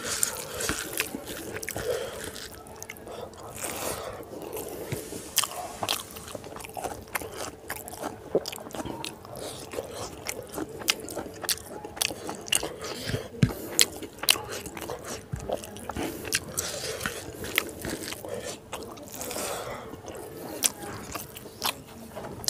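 Close-up eating sounds of rice and pork curry eaten by hand: chewing with many irregular wet mouth clicks and smacks, along with fingers mixing and scraping rice on the plate.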